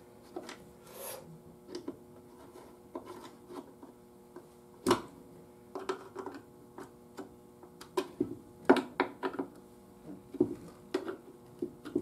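A small hand screwdriver turning screws down into the radio's panel and cabinet: rasping, scraping turns with scattered small clicks and light knocks of parts being handled. One sharper click comes about five seconds in, and the clicks come thicker in the second half.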